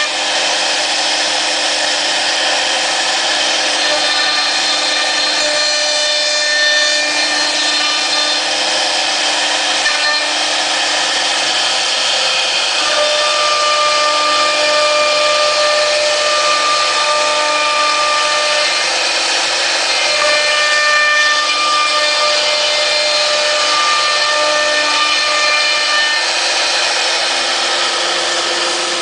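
A 3-axis CNC wood router running and cutting wood: a steady, loud noise of the spindle and bit in the wood, with whining tones that shift and change every few seconds.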